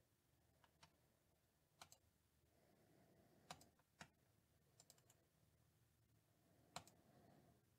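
Very faint, scattered clicks of a computer mouse and keyboard, about a dozen spread unevenly over several seconds, over a low room hum.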